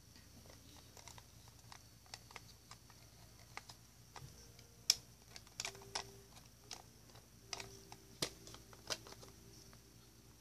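Faint, scattered clicks and light taps of a hand handling a plush toy. The two sharpest clicks come about five seconds in and just after eight seconds.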